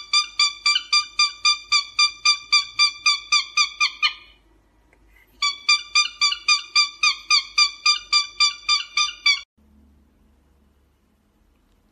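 Cockatiel calling the same whistled note over and over, about five times a second, in two runs of roughly four seconds with a short pause between. It stops abruptly near the end, leaving only faint room sound.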